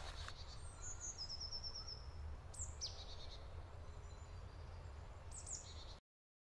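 Faint forest ambience: small birds calling, with a short rapid trill about a second in, a falling chirp near three seconds and a few more calls near the end, over a low steady rumble. The sound cuts off abruptly just before the end.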